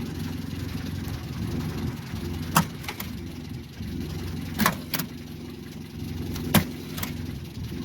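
Renault R10/R8's rear-mounted four-cylinder engine running steadily, with several sharp clicks in pairs over it.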